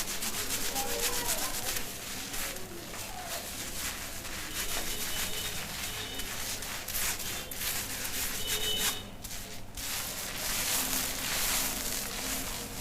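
Fingers scratching and rubbing a shampoo-lathered scalp in a head massage: a rapid run of rough, scratchy strokes.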